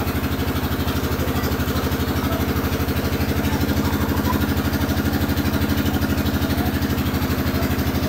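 Small engine idling steadily, a low, even throb.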